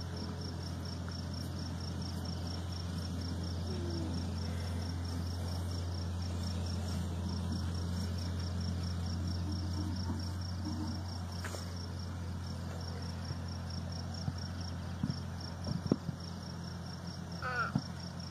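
Outdoor ambience: a steady low hum, with a faint high-pitched chirping repeating about three times a second over it. A few sharp clicks come near the end.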